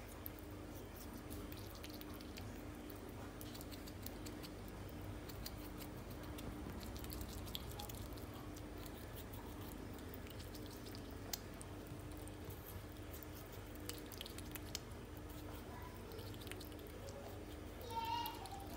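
A squirrel gnawing and chewing ripe papaya flesh: soft wet squishes with small scattered clicks of its teeth and claws. Near the end comes a brief high wavering squeak.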